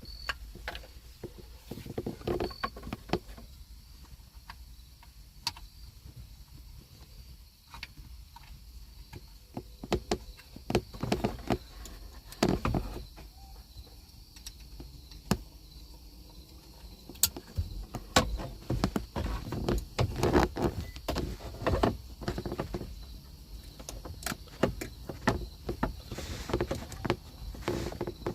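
Irregular plastic clicks, knocks and rustling of hands plugging wiring harness connectors into a replacement car display screen and fitting it in place, with low handling rumble on the phone's microphone.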